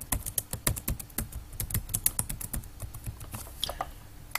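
Computer keyboard being typed on: a quick, uneven run of key clicks that thins out about three seconds in, with one sharp click just before the end.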